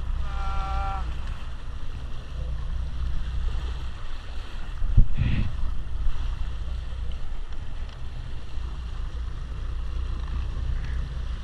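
Water splashing as a large tuna thrashes against the side of the boat, over a steady low rumble of wind on the microphone. A short squeaky tone sounds in the first second, and a sharp knock about five seconds in.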